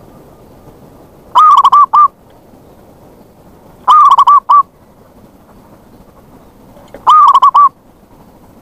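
Zebra dove (perkutut) cooing loudly three times, a few seconds apart. Each call is a quick rolling run of coos that ends in one separate final note.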